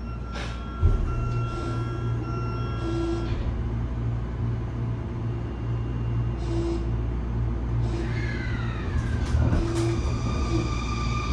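Inside a Sotetsu 20000 series electric train car: a steady low rumble with a thump about a second in. About eight seconds in, the Hitachi hybrid SiC VVVF inverter's whine comes in, falling in pitch and then holding a steady tone as the train starts to accelerate.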